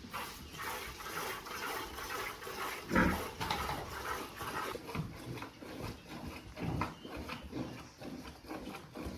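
Farm animal noises: irregular short sounds and knocks, the loudest about three seconds in.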